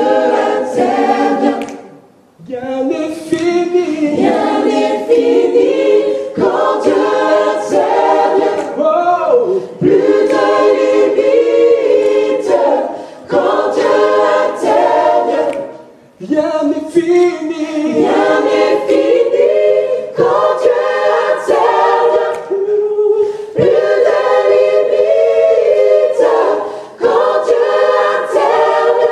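A choir of voices singing a gospel worship song a cappella, in long harmonised phrases with short breaks between them.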